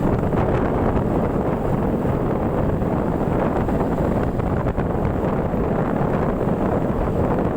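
Steady wind buffeting on the microphone over a motorcycle's running engine and road noise while riding.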